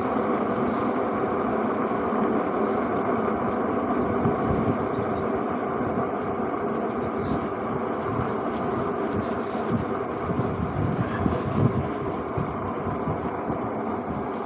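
Steady wind rush and tyre noise from a Super73 ZX electric bike being ridden, with a few light knocks from bumps in the second half.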